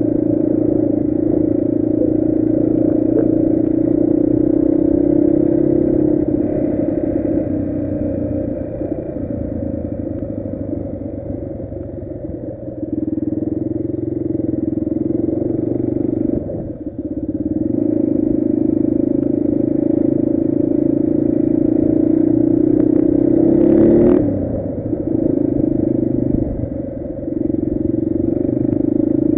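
Yamaha TT350's air-cooled single-cylinder four-stroke engine running under way, its note dipping briefly a few times and picking up again. A brief sharp click cuts through about three-quarters of the way in.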